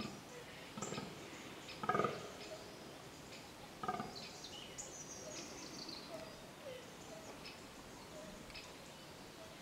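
Fallow deer buck groaning in the rut: three short, low groans about two seconds apart, the middle one loudest. Small birds chirp faintly between them.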